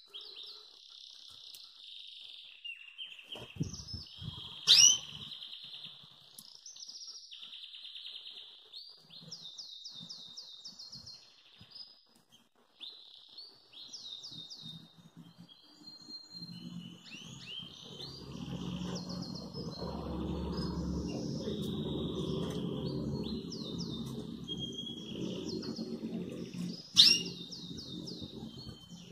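Pintagol, a canary × hooded siskin hybrid, singing a long twittering song of warbles and fast trills. Two sharp clicks break in, about five seconds in and near the end, and a low rumble sits under the song in the second half.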